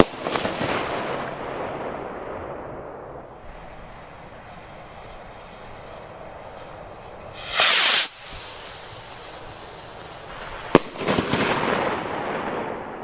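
Firework rockets from a nine-rocket consumer set: a sharp burst bang followed by crackling that fades over a few seconds. About seven and a half seconds in, a rocket launches with a short, loud whoosh. About three seconds later it bursts with another sharp bang, and the crackling starts again.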